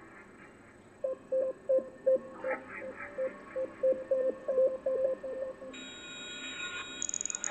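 Generative electronic soundtrack played back through a speaker: a run of short, pitched blips at an uneven rhythm, then a steady electronic hum of several tones about six seconds in, and a rapid, high buzzing near the end.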